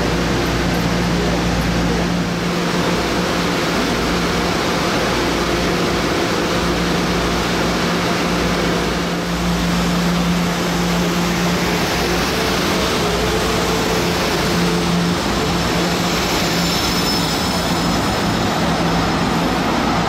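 Light rail train running, a steady noise with a low droning hum and a faint high whine near the end.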